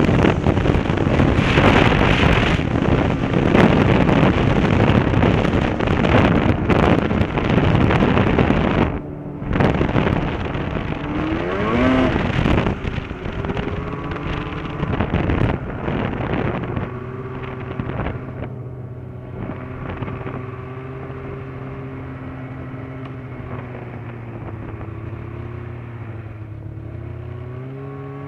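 Snowmobile engine at speed under a heavy rush of wind on the microphone. About nine seconds in the throttle comes off, followed by a brief rev. From about halfway the engine settles to a steady idle.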